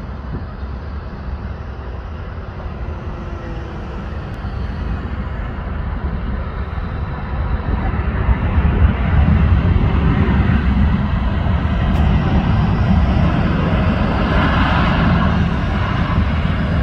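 Boeing 787 airliner's turbofan engines running at high thrust on the runway: a deep, steady rumble with a whine that builds, the whole sound growing louder as the jet comes closer.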